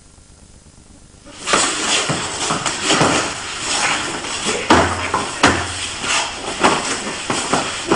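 Two people grappling and rolling on a padded mat. After a low hiss, a loud scuffle of clothing and bodies sliding on the mat starts suddenly about a second and a half in. It runs with repeated knocks and a couple of heavier thuds of bodies hitting the mat about five seconds in.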